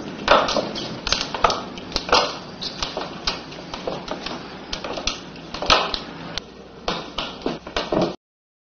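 Footsteps on a spiral staircase: an irregular string of hard knocks and taps, about two to three a second, that cuts off abruptly near the end.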